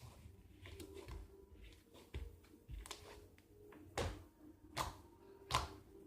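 Hands squishing and stretching fluffy slime made with shaving foam: soft sticky clicks and pops, with three sharper ones in the second half, over a faint steady hum.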